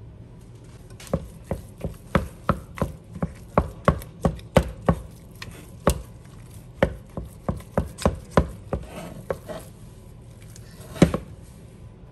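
A wooden spoon jabbing and mashing boiled potatoes in a stainless steel pot, knocking against the pot: a quick run of sharp knocks, two or three a second, then one louder knock near the end.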